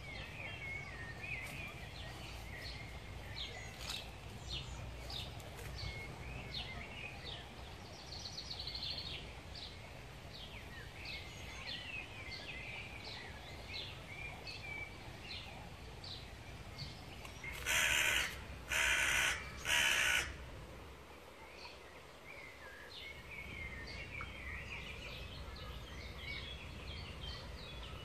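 Small birds chirping and singing over a low steady rumble. About eighteen seconds in come three loud, harsh calls from a larger bird, each under a second long and close together.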